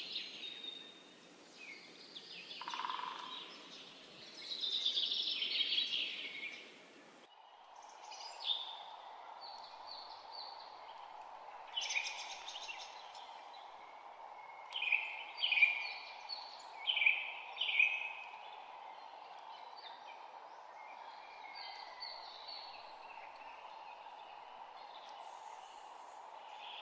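Songbirds singing and calling in short repeated phrases, with a run of four loud chirps past the middle. About seven seconds in, the background changes abruptly to a steady faint hiss under the birds.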